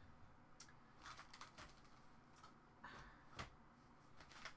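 Faint handling noises of someone rummaging through a pile of items: a scattering of small irregular clicks and rustles, a few in a quick cluster about a second in.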